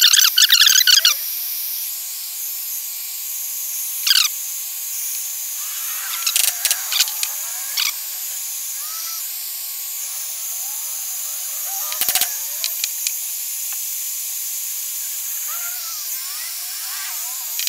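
Handheld electric heat gun running steadily, its fan blowing a continuous hiss as it heats an aluminium engine crankcase to free the bearings. A brief louder, high chattering burst comes in the first second, with scattered faint chirps and a few sharp clicks about twelve seconds in.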